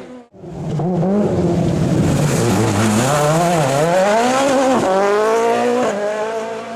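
Rally car engine at full throttle, its pitch climbing and falling through gear changes, with a sharp drop about five seconds in; a brief dropout just after the start.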